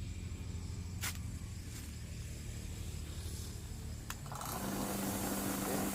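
Pepper grinding machine being switched on: a couple of clicks, then about four seconds in a steady running whir with a constant low hum starts and keeps going.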